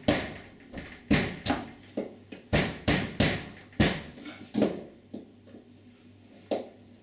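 A heavy-duty flat scraper knocking and prising against a uPVC door's glazing bead and frame to lever the bead out: a quick irregular run of sharp clicks and knocks for about five seconds, then one more near the end.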